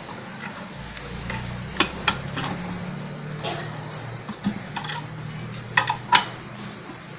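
Metal clinks and clicks of hand tools on a bearing puller as it is worked to draw a bearing out of an orange juicer. The clicks are scattered, with the sharpest about six seconds in, over a low steady hum.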